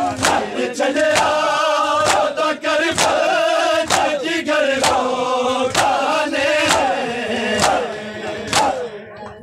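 A crowd of men chanting a noha in unison while beating their chests in matam, the hand-on-chest slaps landing together about once a second. The chant and slaps die down near the end.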